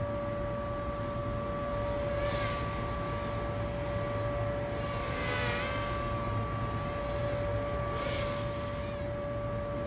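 Small toy quadcopter's motors and propellers buzzing in flight, a steady whine that swells three times with a brief wavering of pitch, over a constant low rumble.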